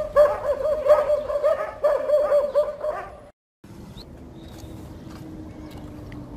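Egyptian street dogs (baladi dogs) barking and yelping rapidly, several high calls a second, for about three seconds. The barking then cuts off abruptly, leaving a faint steady low hum.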